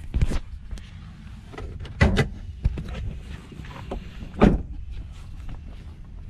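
Knocks and thumps of handling a Cadillac DeVille at its open driver's door: sharp knocks near the start and about two seconds in, and a louder thump about four and a half seconds in.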